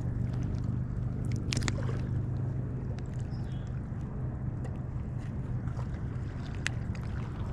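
A boat motor running steadily with a low, even hum, with a few sharp clicks about a second and a half in and again near the end.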